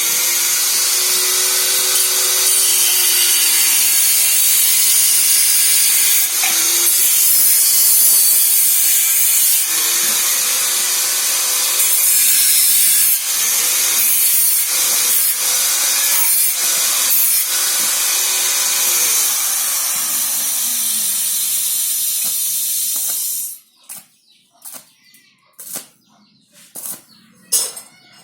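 Welding arc crackling and hissing steadily for over twenty seconds, then cutting off suddenly, followed by a few light clicks and taps.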